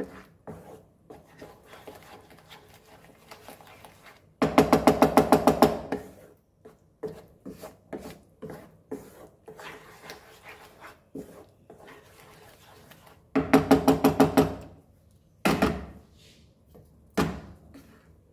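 Wooden spatula scraping and stirring thick masala paste in a nonstick kadai. It comes as a rasping run of rapid strokes about four seconds in and again near thirteen seconds, with two single scrapes after that and quieter stirring in between.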